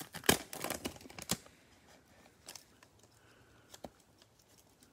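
Plastic wrapper of a Panini Prizm football card cello pack crinkling and crackling as it is torn open, with a burst of sharp crackles in the first second and a half, then fainter scattered ones.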